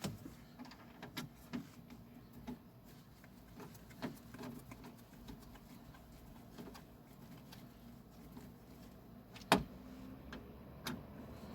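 Scattered light clicks and knocks of screws and car door trim parts being handled, with one sharper click about two seconds before the end.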